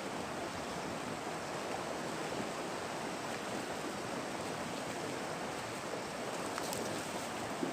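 Steady rushing of river water, with a few faint clicks near the end.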